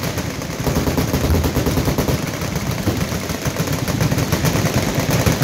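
Many machine guns, .50-calibres among them, firing full-auto at once on a firing line: a dense, continuous din of overlapping bursts.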